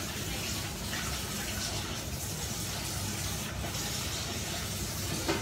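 Celery and shredded chicken cooking in broth in a stainless frying pan over a gas flame: a steady sizzling hiss. Near the end a metal spatula knocks against the pan.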